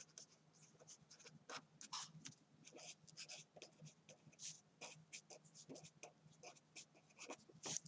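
Pen writing on paper: a quick, irregular run of faint scratching strokes as words are handwritten.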